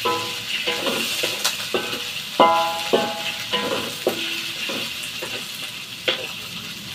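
Stir-fry sizzling in a wok over a gas flame while a wooden spatula stirs it, each stroke knocking the wok so that it rings briefly, about twice a second, with a longer gap near the end.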